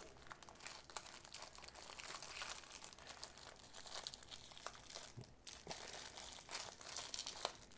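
Clear plastic wrap crinkling and crackling in irregular bursts as hands peel it off a small pocket radio.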